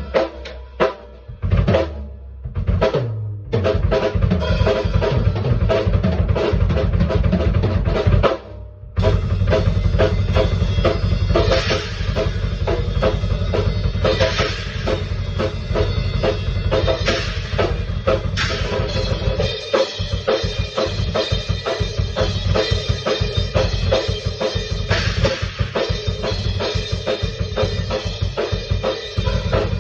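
Drum kit played freestyle in a steady, busy rhythm of kick, snare and cymbals, with a brief break about eight and a half seconds in. The deep kick-drum low end drops away about twenty seconds in and returns near the end.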